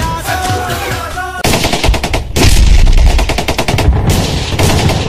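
Sung music cuts off about a second and a half in, replaced by a loud recorded machine-gun sound effect: rapid, continuous bursts of automatic fire with heavy low booms underneath.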